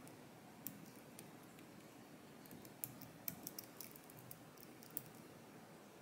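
Faint clicks and ticks of a hook pick lifting the pins in a Medeco M4 lock cylinder held under tension, about seven small clicks with most of them bunched together around the middle.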